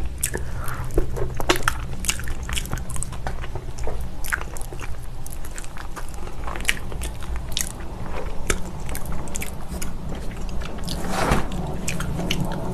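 Close-miked eating: spicy braised beef feet being bitten and chewed off the bone, with many short, sharp wet clicks over a steady low hum.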